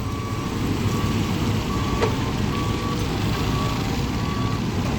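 A heavy construction vehicle's engine running, with its reversing alarm giving short beeps about once every three quarters of a second.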